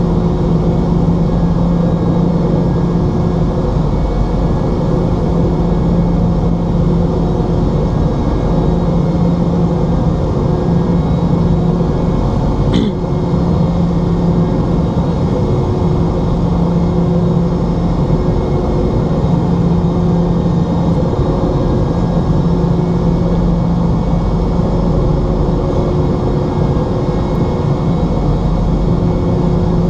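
Steady engine drone and rushing air inside the cabin of a QantasLink Boeing 717, from its two rear-mounted Rolls-Royce BR715 turbofans, with a low hum that swells and fades slightly. A single short click about halfway through.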